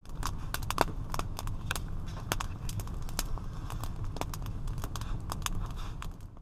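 Wood fire crackling: irregular sharp pops and snaps over a low rumble, fading away near the end.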